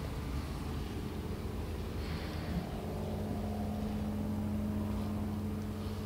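An engine running steadily with a low drone, and a steady hum joining in about halfway through.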